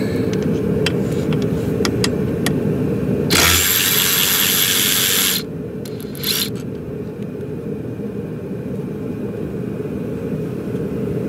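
Cordless power tool on a long extension spinning out a bolt at the AC line block for about two seconds, with a second short burst a moment later. A steady low rumble runs underneath.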